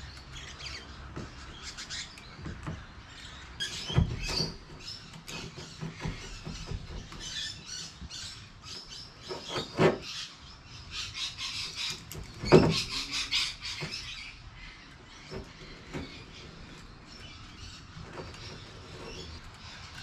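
Utility knife slicing through boat floor carpet by hand: intermittent scratchy rasping strokes and rustling, with a few louder knocks along the way.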